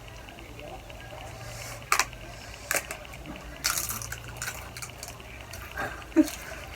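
Close-up mukbang eating sounds of spicy instant noodles: wet chewing and slurping, with a few sharp clicks about two, three and four seconds in.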